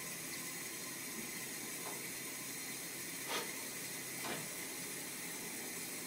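Gas hissing steadily from an unlit gas hob burner that has been turned on. Two faint knocks come about a second apart, a little past the middle.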